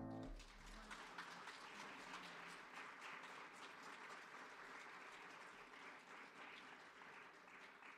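Faint applause, starting just as a piano's final sustained chord cuts off and fading away near the end.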